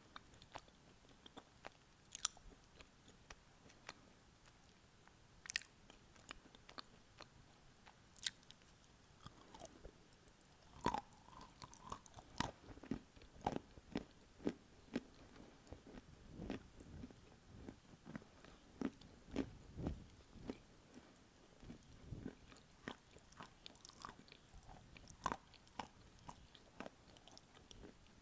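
Biting and chewing of dry edible clay chunks, picked up close to the mouth by an earphone's inline microphone: faint, irregular sharp crunches with softer chewing between them, coming more often from about ten seconds in.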